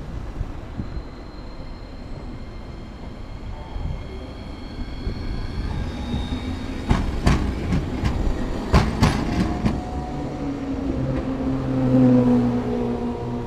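Hankai Tramway low-floor tram no. 1003 pulling away and passing close by. Its wheels give a quick series of sharp clacks over the rail joints, then its motors whine, rising in pitch as it accelerates away.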